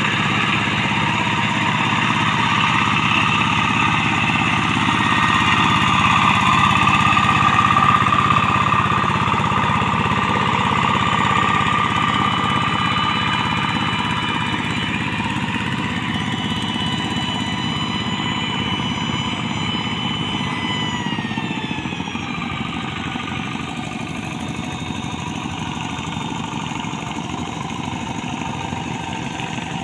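Yanmar TF single-cylinder diesel engine of a Quick TL800 hand tractor running steadily under load as its cage wheels churn through a flooded rice paddy. The engine's pitch drops a little about two-thirds of the way through, and the sound fades gradually as the tractor moves away.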